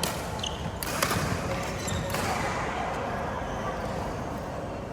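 Badminton rally: a few sharp cracks of rackets striking the shuttlecock, over the steady background noise of an indoor court.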